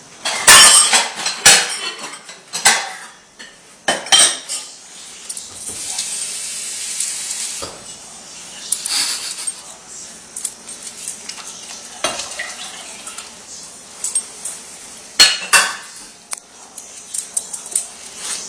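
Pots, pans and metal utensils clattering, with sharp clanks, loudest in the first two seconds and again about fifteen seconds in. A steady hiss runs from about five to eight seconds in.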